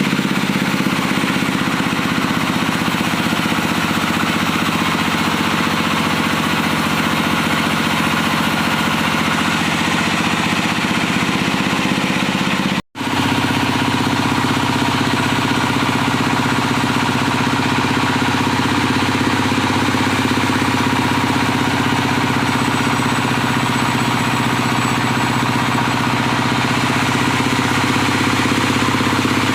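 Diesel engine of a wood sawmill running steadily at an even speed. The sound cuts out for an instant about 13 seconds in, then carries on.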